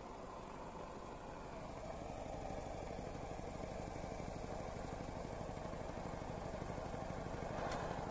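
Homemade tin-can hot air engine running fast, a rapid even rattling buzz that grows louder as it goes.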